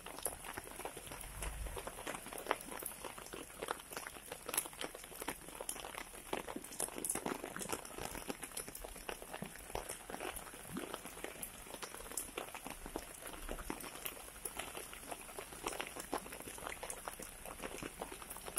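Heavy rain falling on a flooded street, a dense, irregular pattering of drops hitting standing water. A car passing through the water adds a brief low rumble in the first two seconds.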